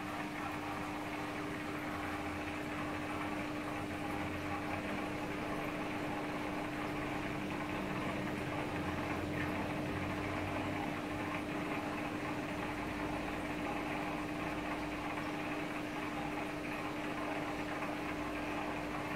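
Aquarium pump running: a steady hum with one constant tone, over a bubbling, running-water noise.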